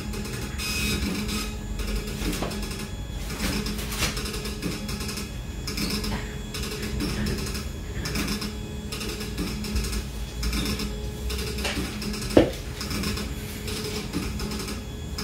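Background music with a steady, pulsing beat, with one sharp click about twelve seconds in.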